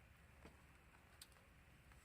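Near silence, with two faint short ticks, one about half a second in and one a little after a second.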